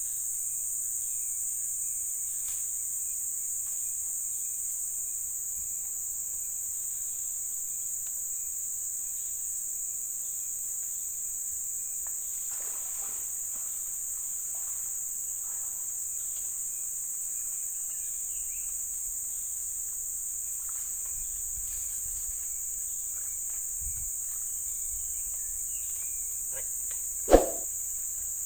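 Steady high-pitched insect chorus, continuous throughout. Near the end there is one short, sharp, loud sound.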